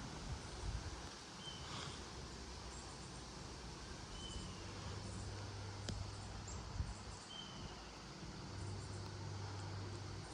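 Gusty wind outdoors, a steady hiss with low buffeting rumbles near the start. A bird gives a short high chirp about every three seconds, and a low steady hum comes in around the middle.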